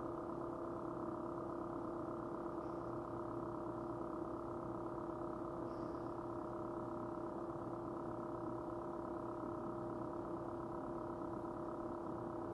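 Steady machine hum made of several held tones, the strongest one low-pitched, unchanging throughout.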